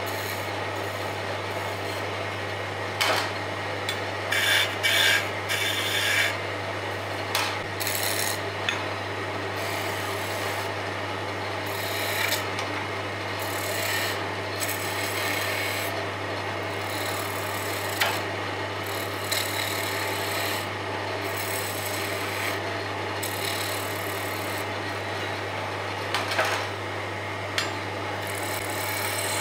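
Wood lathe running with a steady hum while a hand-held turning chisel scrapes and cuts the spinning wooden blank. Irregular louder scraping bursts come as the tool bites harder.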